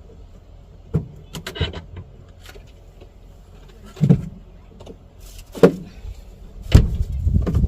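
Handling knocks and clicks while a portable cooker and pan are set up, a handful of separate sharp knocks. About seven seconds in, a low rumble of wind buffeting the microphone begins and carries on.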